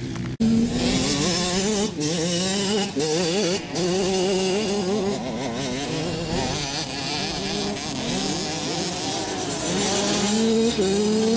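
Motocross dirt bike engine revving up and down as the bike rides the track, the pitch rising and falling with the throttle. There is a brief cut in the sound about half a second in.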